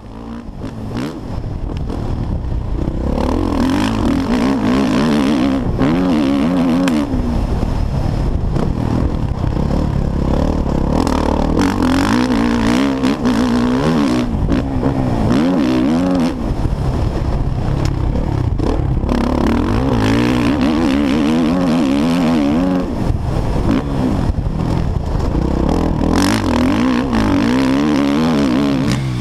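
Suzuki RM-Z450 four-stroke single-cylinder motocross bike ridden hard, its engine revving up and dropping back over and over as the rider works the throttle and gears, heard close up from the rider's helmet. The sound fades in over the first couple of seconds.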